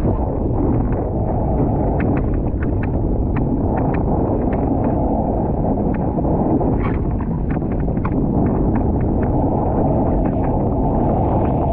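Steady wind and water rush on a board-mounted action camera's microphone as a foil board rides a wave. The sound is mostly low and dull, with scattered sharp ticks throughout.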